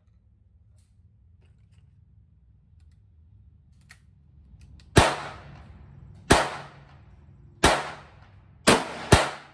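Five gunshots at a shooting range, each with a short echoing tail, beginning about five seconds in, the last two about half a second apart. A light click comes about a second before the first shot.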